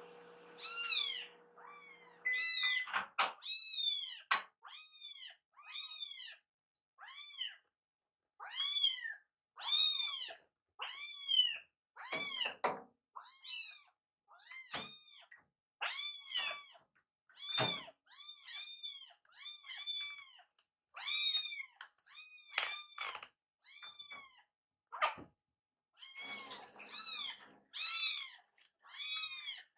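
Kittens meowing over and over, about one high call a second, each rising and then falling in pitch: begging for food. A few thumps fall among the calls.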